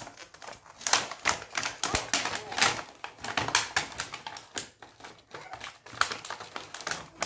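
Small plastic toy pieces clicking and clattering in quick, irregular taps.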